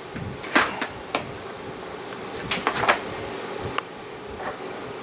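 A cleaning rod being worked into the bore of a folded Kel-Tec SUB-2000 carbine: a handful of short scrapes and light knocks, spaced irregularly, over a faint steady hum.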